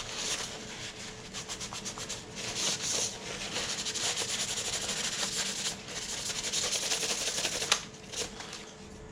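Oily Umarex H&K USP gas blowback pistol being polished by hand: a run of quick, rapid rubbing strokes wiping the oil off its body, with a sharp click near the end.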